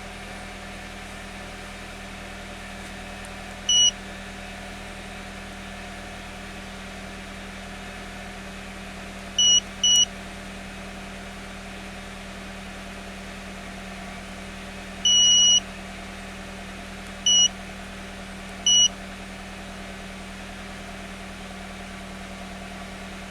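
Autel AL539 handheld scan tool beeping as its keypad buttons are pressed to step through menus: six short, high-pitched beeps at irregular intervals, one held for about half a second, over a steady low hum.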